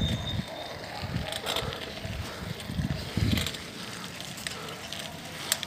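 Uneven low rumbling from wind buffeting a phone microphone, with scattered rattles and knocks, as the phone is carried at speed. One sharp click comes near the end.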